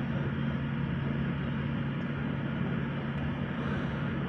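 Steady road and engine noise of a moving car heard from inside the cabin, with a constant low drone.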